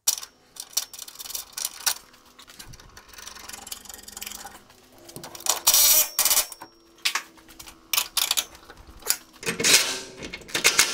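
Socket ratchets tightening suspension bolts: irregular clicking of a hand ratchet, and a cordless ratchet running in two short bursts, about halfway through and again near the end.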